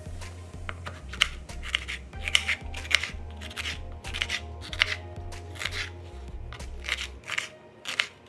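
Kitchen knife slicing a red bell pepper on a bamboo cutting board: a crisp cut and tap of the blade on the board about every half second.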